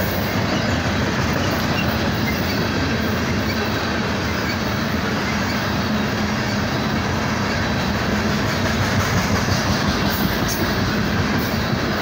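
Loaded coal hopper cars of a freight train rolling past close by: a steady, even noise of steel wheels running on the rails.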